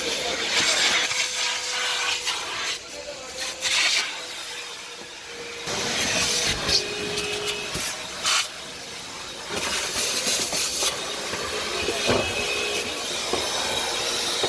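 Kärcher NT 70/2 twin-motor vacuum cleaner running: a steady motor whine under a rushing hiss of suction that swells and dips as the nozzle works, with a few brief sharp surges.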